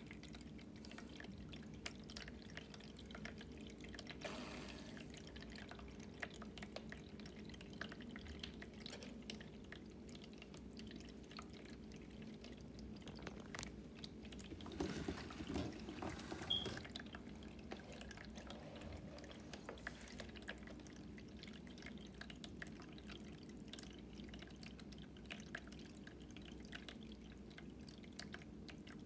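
Cat Mate pet fountain running, its water trickling and dripping from the spout into the bowl over a steady low hum from its mains-powered pump. The sound is faint, with a brief louder stir about halfway through.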